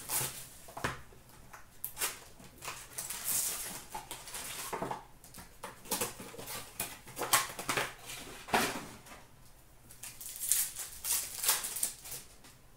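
Hockey trading cards handled and sorted by hand, giving irregular rustling, sliding and tapping of cards.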